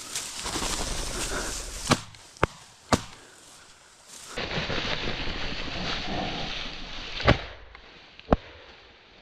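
Shotgun shots: three sharp reports about half a second apart, then, after a break, two more about a second apart. A steady rushing noise runs between them.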